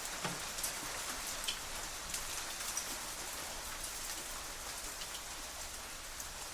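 Hailstones hitting metal shutters: a dense, steady hiss of small hits, with sharper single strikes standing out every half second to second.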